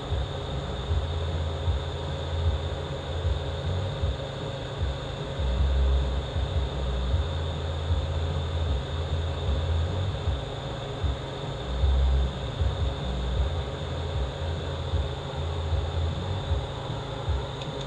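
Steady hum of a shop fan or ventilation unit, with a low rumble that swells and fades unevenly.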